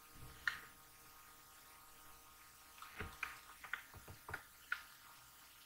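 Quiet room tone with a few faint, short clicks and small knocks close to the microphone: one about half a second in, then a scattered run of them from about three seconds to nearly five, one with a soft low thump.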